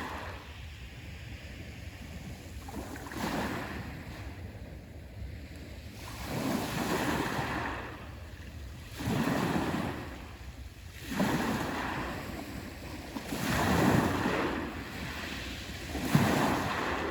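Black Sea waves breaking on the shore: about six surges of surf, each swelling and washing out, every two to three seconds.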